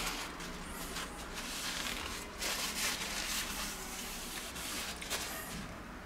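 Paper towel rubbing and rustling against a glass-ceramic hob and a steel pot while wiping up spilled soup, with a few short scuffs; the rustling dies away near the end.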